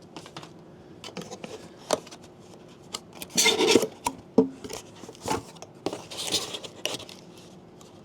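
Lens box contents being handled: paper and packaging rustling and scraping, with scattered light taps and clicks. There are two longer rustles, about three and a half and six seconds in.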